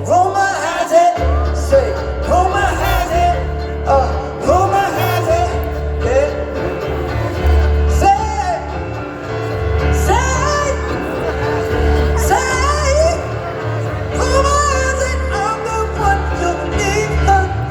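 Live band performing a pop song with a male lead vocal, over a pulsing bass line and a sustained held chord.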